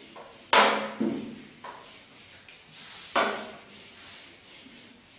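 Handheld eraser wiping across a whiteboard: two loud strokes, each starting sharply and fading quickly, about half a second and three seconds in, with lighter rubbing between.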